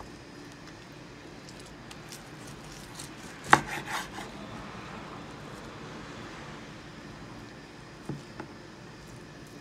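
Metal kitchen tongs knocking and tapping on a wooden cutting board while a cooked rack of ribs is turned: one sharp clack about three and a half seconds in followed by a few lighter taps, and two more taps near the end.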